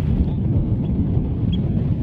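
Wind buffeting the microphone, a steady low rumble, with a faint short high blip about one and a half seconds in.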